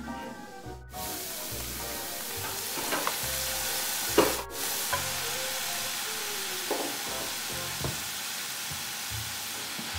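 Diced onion, carrot and Swiss chard sizzling steadily as they sauté in a cast-iron skillet, stirred with a metal spatula. The sizzle starts about a second in, and there is a sharp knock about four seconds in.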